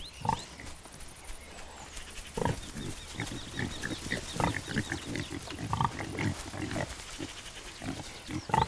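A sow and her piglets grunting and squealing in many short calls that come faster and overlap from about two seconds in, with a louder call near the end.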